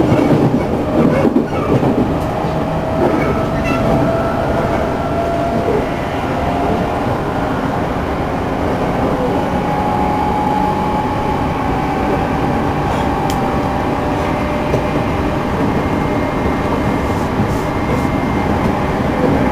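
Interior running sound of a JR Central 211-series EMU motor car under way: steady rolling noise with a whine that slowly rises in pitch as the train gains speed. This car is one of the units noted for an unusually loud, abnormal running noise.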